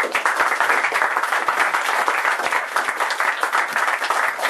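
Small audience applauding: dense, steady clapping from many hands.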